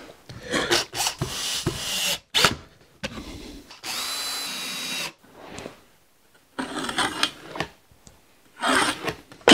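Cordless drill-driver driving screws into wooden corner blocks, in several short bursts broken by sudden cuts; the longest burst, about four seconds in, is a steady motor whine lasting just over a second.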